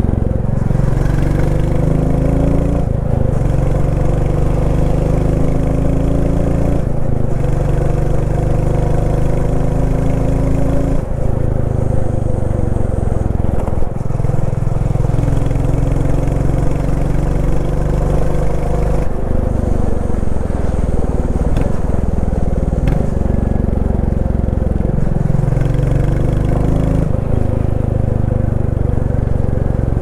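Royal Enfield Classic 350's single-cylinder engine thumping through its exhaust while riding. The engine note holds steady, then steps to a new pitch several times.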